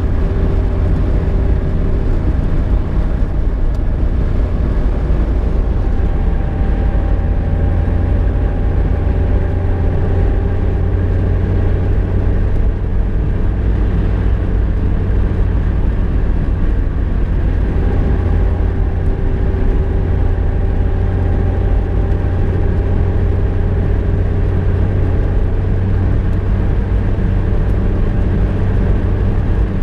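Volkswagen Golf Mk2 driving, heard from inside the cabin: a steady low drone of engine and road noise. The engine hum twice climbs slowly in pitch as the car gathers speed.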